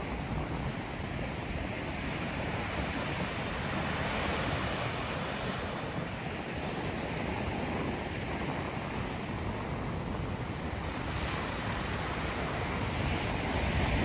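Ocean surf breaking and washing up a sandy beach: a steady rush of waves, swelling and easing, that grows louder near the end.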